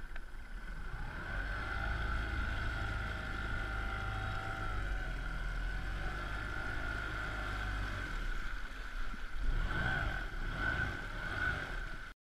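Tohatsu outboard motor running with the boat under way: a steady low drone with a higher whine over it. The engine note shifts a little in the first few seconds, and there are louder rushes of noise near the end.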